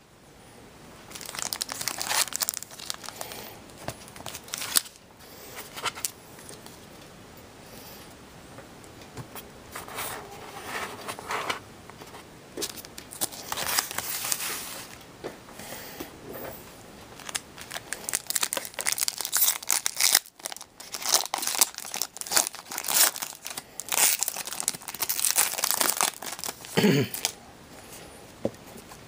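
Foil-plastic wrappers of Upper Deck MVP hockey card packs being torn open and crinkled by hand, in irregular bursts of rustling and tearing.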